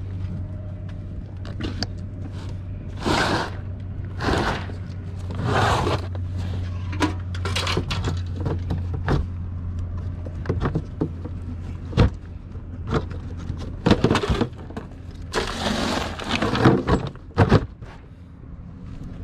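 A plastic cooler being handled: a run of scrapes, rustles and sharp plastic knocks as its lid is worked open and shut. A steady low hum runs under the first half and stops about eleven seconds in.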